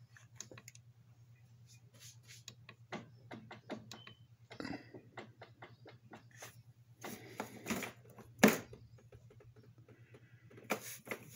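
Scattered light clicks and knocks, with one sharper knock about eight seconds in, over a faint steady low hum.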